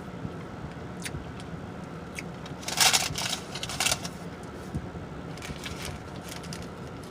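Close-up eating sounds: scattered mouth clicks and smacking of chewing, with a louder crackling burst about three seconds in, over a steady low hum.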